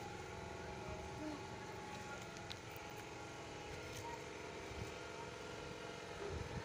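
A steady, low engine hum with faint steady tones in it, running evenly throughout.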